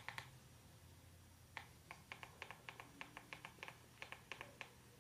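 Faint, quick clicking of a handheld remote's buttons being pressed over and over to step the floodlight's strobe speed down: a short run right at the start, then about fifteen clicks from a little over a second and a half in until near the end.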